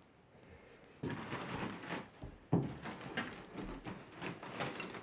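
Plastic bag crinkling and rustling as it is handled, starting about a second in, with a sharp thump about halfway through.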